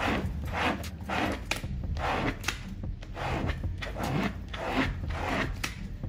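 Microfiber towel rubbed hard back and forth over vinyl decals and their transfer tape on cardboard, in scratchy strokes about twice a second. It is burnishing the cut vinyl pieces so they stick to the clear transfer tape.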